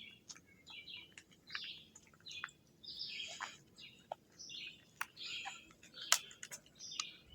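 Birds chirping: a run of short, high calls a second or so apart, with two sharp clicks about five and six seconds in.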